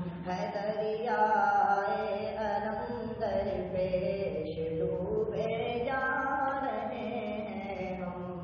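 A man's voice singing a tarana, an Urdu devotional song, in long held notes that glide from pitch to pitch, over a steady low hum.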